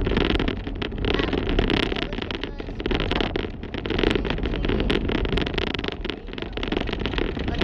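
Steady road and wind noise inside a moving car, with frequent short crackling clicks throughout.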